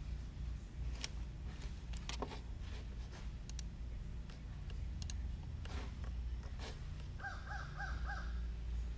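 A few sharp computer-mouse clicks over a low steady hum. Near the end comes a quick run of about five short, high chirps.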